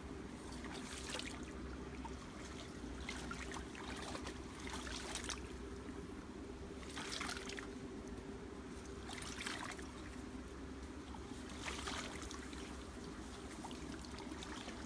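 Legs wading slowly through shallow stream water, with a sloshing swish about every two seconds as each step pushes through, over a steady low hum.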